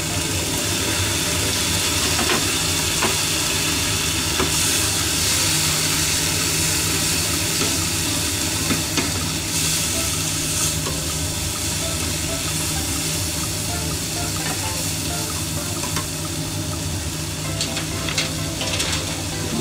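Mizuna and chirimen jako sizzling steadily as they are stir-fried in a pan, with a few light clicks scattered through, several close together near the end.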